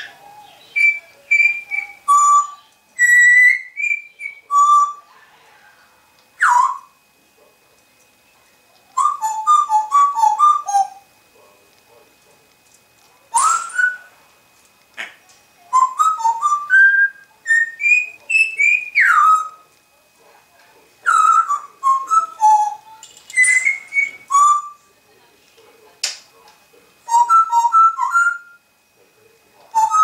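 African grey parrot whistling: bursts of short clear notes and rising whistled glides, broken by pauses of a second or more.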